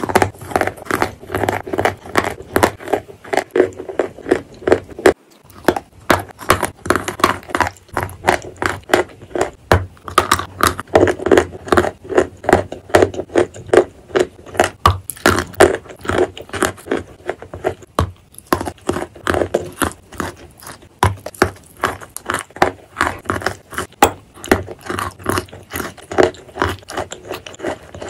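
Close-miked chewing and crunching of water-soaked chalk, a dense irregular run of crisp crackles mixed with wet, pasty mouth sounds, with a brief lull about five seconds in.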